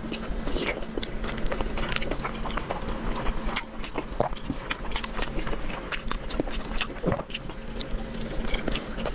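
Close-miked eating: chewing and wet mouth clicks from someone eating braised pork belly, irregular and continuous, over a steady low hum.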